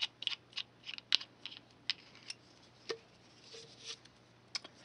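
Light, irregular clicks and taps of hands handling small craft items: the cap being pulled off a fine-tip liquid glue bottle and small cardstock frame pieces being picked up off a grid mat.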